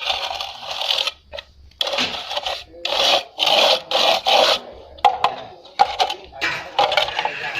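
Plastering float or trowel rubbing back and forth over cement render on a wall: a run of rasping strokes, each half a second to a second long, with short pauses between them.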